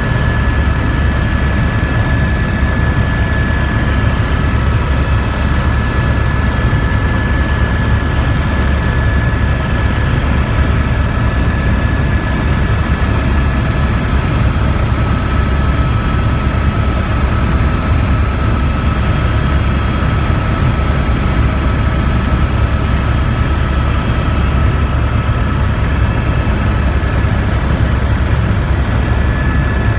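Helicopter in flight: a steady, loud engine and rotor drone with a thin high whine over it that shifts lower about halfway through and comes back up near the end.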